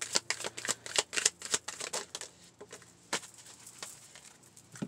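A deck of oracle cards being shuffled by hand: a rapid run of flicking card clicks that thins out after about two seconds into a few scattered clicks.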